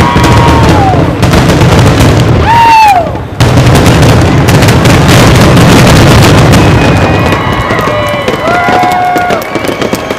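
Fireworks display: many aerial shells bursting in quick succession, a loud continuous mass of booms and crackling. A few whistled tones rise and fall over it.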